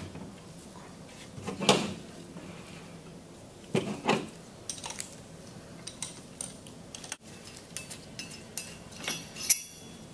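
Metal clanks and clinks from a stainless steel pneumatic chemical injection pump being stood upright and handled on a table, with loose steel bolts clinking. The loudest knock comes about two seconds in and two more around four seconds, followed by lighter clicks and a brief metallic ring near the end.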